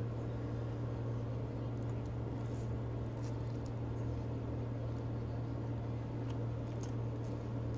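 Spaghetti being eaten: noodles sucked in and chewed, with a few faint short clicks from the fork, over a steady low hum that is the loudest sound.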